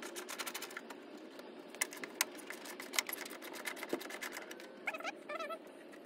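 Scattered sharp clicks and light knocks of a third-generation Toyota Tacoma's plastic front grille being worked loose from its clips, over a faint steady hum. A few short chirps come about five seconds in.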